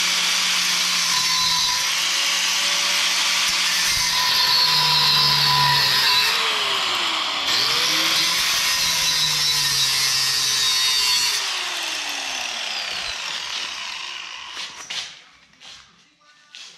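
Angle grinder with a thin cut-off wheel cutting through a flat steel bar, a loud hissing screech with the motor's pitch dipping and recovering as the wheel bites. About 11 seconds in the trigger is released and the motor winds down with a falling whine, followed by a few light knocks near the end.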